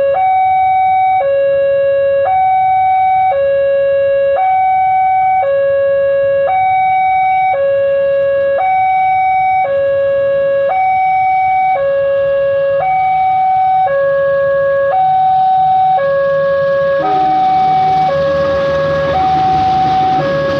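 Railway level-crossing warning siren at JPL 281, very loud, alternating steadily between a high and a low tone about once a second. In the last few seconds a rushing noise and low rumble build up under it.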